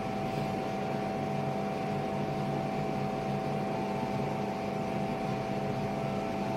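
Steady machine hum with a few fixed pitched tones, unchanging throughout.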